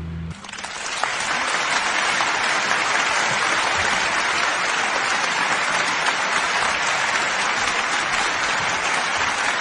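The last acoustic guitar chord of a song cuts off, then a steady stretch of applause follows.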